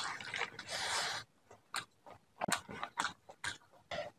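Close-miked wet chewing and mouth smacking of a big handful of rice and fish curry eaten by hand: a loud, noisy stretch of chewing for about the first second, then a run of short, sharp wet smacks.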